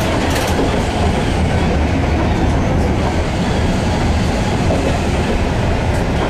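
Heritage tram running along the rails, heard from on board: a steady rumble of wheels on the track.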